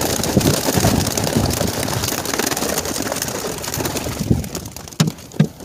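Racing pigeons beating their wings as they burst out of a transport basket: a dense flurry of flapping that thins out about four seconds in, followed by a couple of knocks near the end.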